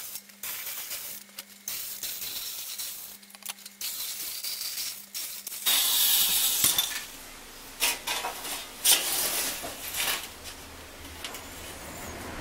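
Corded electric sheet-metal shear cutting thin sheet metal in stop-start runs, the motor's hum coming and going under a hissing, rasping cut that is loudest about six seconds in. Sharp metallic clanks and rattles follow as the thin sheet and its offcut are handled.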